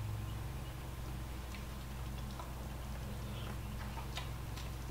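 Faint, scattered clicks of a spoon and mouth sounds as a spoonful of food is tasted, over a steady low hum.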